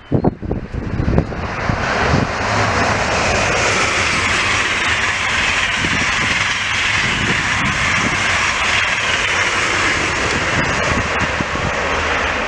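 Deutsche Bahn ICE high-speed train passing at speed: a steady rushing roar of wheels on rail and air that builds over the first couple of seconds and holds. Wind buffets the microphone at the start.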